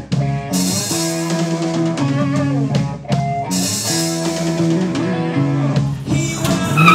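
Rock music: guitar over a drum kit, with steady held notes and a regular beat.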